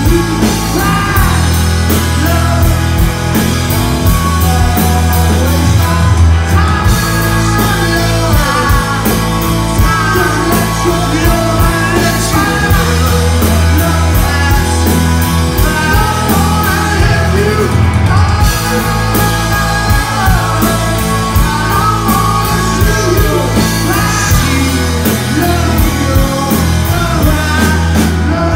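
Rock band playing a song live and loud: a singer over electric guitar, bass and drums, with a steady beat of cymbal hits.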